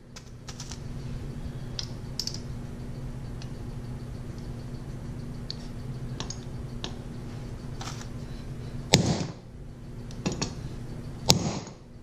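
Hammer striking a hammer-type lug crimper to crimp a lug onto heavy 2-gauge battery cable: three sharp blows near the end, the first the loudest. Before them come light clicks of the lug and cable being set in the tool, over a steady low hum.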